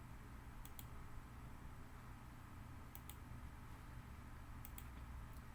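Computer mouse clicking faintly, four quick pairs of clicks spread over a few seconds, over a low steady hum.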